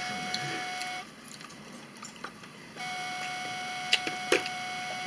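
A steady electronic beep tone holds for about the first second, stops, then comes back near three seconds in and holds on. Under it are a couple of faint light clicks.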